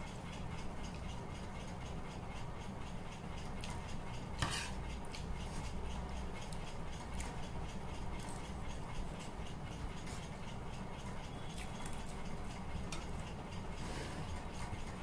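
A steel spoon clinking and scraping against a ceramic bowl while eating, with a sharp clink about four and a half seconds in and another near the end. Under it runs a steady low hum and faint, even ticking.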